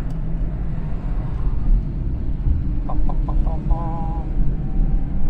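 A 1982 Renault 9 being driven: steady low engine and road rumble. A few short high pitched notes and a brief wavering tone come a little past halfway.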